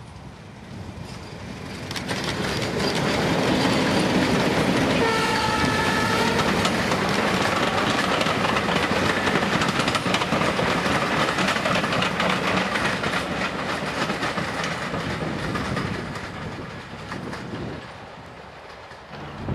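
A passenger train hauled by BR Class 31 diesel locomotives, with their English Electric 12SVT engines, passing by. It grows louder as it nears, gives a horn blast of about a second roughly five seconds in, and clatters over the rail joints as the coaches go by. The sound then fades as it moves away.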